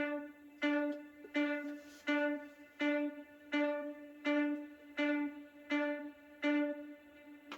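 House-music audio sample triggered from a DIY MIDI controller's launchpad and played through speakers: a single plucked, string-like note repeated on the same pitch about every three-quarters of a second, each note fading before the next.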